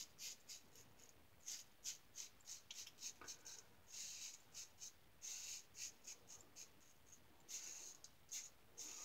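Faint scrape of a GE Jones Shake Sharp MK2 vintage safety razor with double-stacked blades, cutting through lathered beard stubble. It makes a run of short scratchy strokes, some in quick clusters, with a few longer strokes in the second half.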